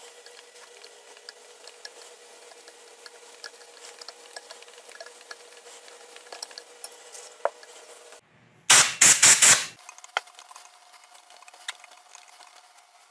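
Time-Sert tap being turned by hand with a T-bar, cutting new 14 mm spark plug threads in an aluminum cylinder head: faint scattered ticks and scraping. About nine seconds in comes a loud burst of several quick clattering strokes.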